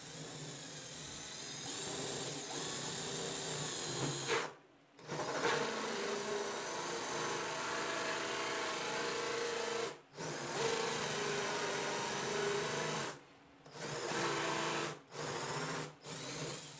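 Cordless drill boring into plywood, running in six separate runs: three long runs of several seconds each, then three short, quick ones near the end, with brief stops between them.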